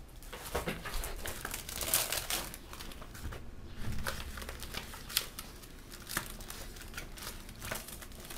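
Paper pages of a printed document in a plastic folder being leafed through by hand: rustling, with irregular sharp page flicks.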